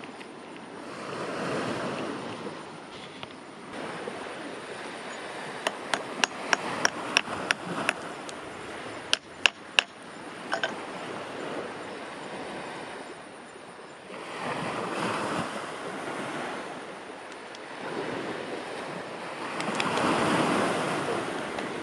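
Hand hammer striking a steel chisel against rock: a quick run of sharp metallic taps from about six seconds in, and a few harder strikes a little later. Gusts of wind swell and fade around them.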